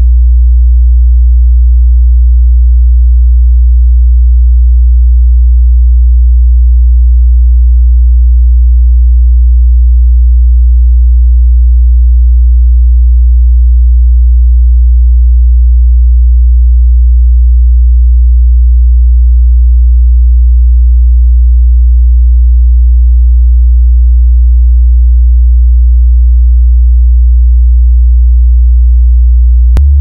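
A loud, steady 60 Hz sine-wave test tone, one step of a stepped low-frequency sweep used to set off rattles and buzzes in a room. It steps up to 70 Hz right at the end.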